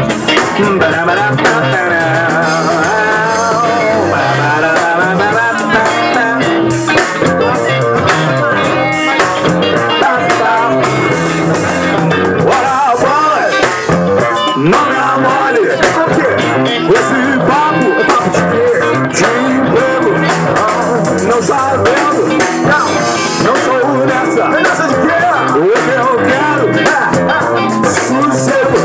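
Live band playing through a PA: electric guitar and drums, with singing over them.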